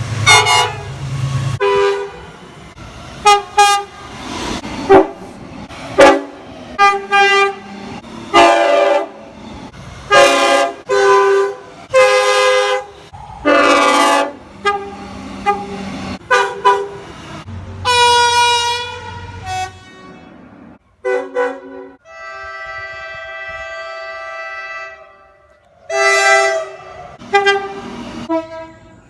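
Train horns sounding in a run of short and longer blasts from several trains, one after another. Late on, a long steady horn chord is held for about three seconds.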